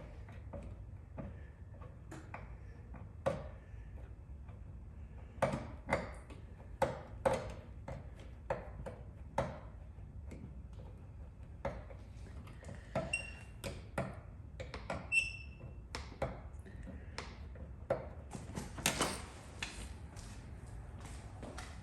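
Irregular sharp taps and clicks of tools handled against metal, with one brief ringing metallic ping near the middle and a short scraping stretch near the end, over a low steady hum.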